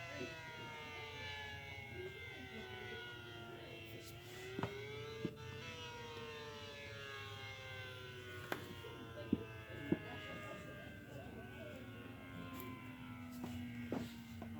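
ACA Allertor 125 rotating outdoor warning siren wailing. Its pitch slides slowly down, climbs again briefly about four seconds in, then slides down once more: the rise-and-fall of the attack signal. A few sharp clicks come through.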